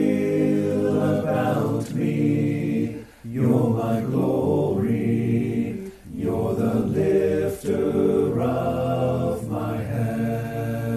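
Layered a cappella singing built up with a looper from overdubbed takes of a voice, holding sustained choir-like chords, with short breaks between phrases about three and six seconds in.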